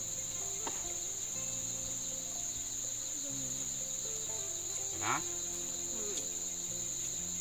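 Steady high-pitched insect chorus, with one short sound about five seconds in.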